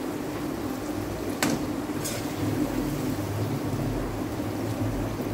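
A serving spoon clinks once against the pan about a second and a half in, followed by a softer scrape, over a steady low kitchen hum.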